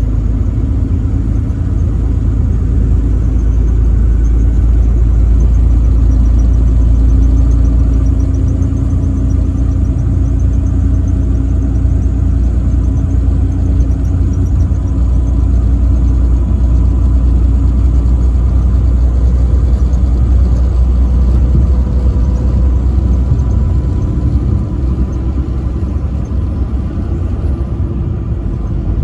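Semi-truck engine and road noise while driving: a steady low rumble that swells a little louder around six seconds in.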